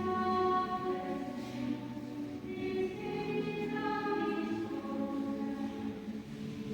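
A choir singing slowly, several voices holding long notes together.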